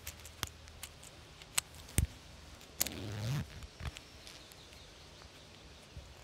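Hands handling wool trousers and their leg pocket as a phone is slid in: a scatter of small sharp clicks and taps, with a short fabric rustle about three seconds in.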